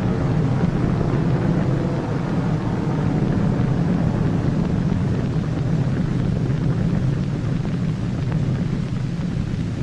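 Steady low rumble of a propeller airplane's engines in flight.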